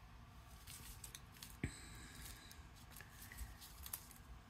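Faint rustling and light taps of cardstock die-cut pieces being handled and slid across a cutting mat, with one sharper tick about a second and a half in.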